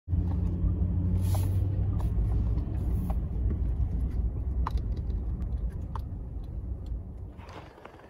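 Low, steady engine and tyre rumble heard inside a vehicle's cabin as it drives slowly over a snow-covered lane, with a few faint clicks; the rumble dies down near the end as the vehicle slows.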